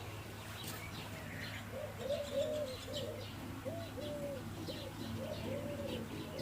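Doves cooing in a run of short coos that rise and fall, with small birds chirping high above them and a steady low hum underneath.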